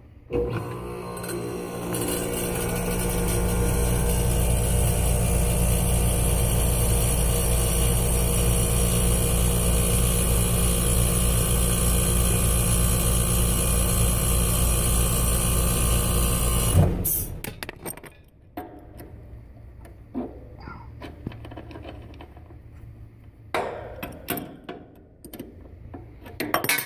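Trane outdoor condensing unit running, its compressor humming and its condenser fan spinning up over the first couple of seconds and then running steadily. About two-thirds of the way through it shuts off abruptly. Afterwards come only light clicks and knocks of a wrench and gauge-hose fittings being handled.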